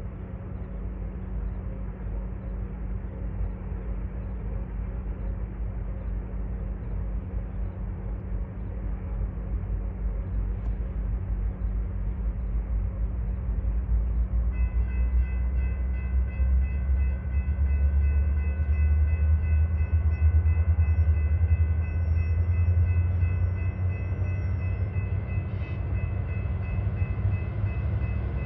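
An approaching Union Pacific diesel freight train, its low engine rumble growing louder. About halfway through, a chord of steady high tones starts and holds.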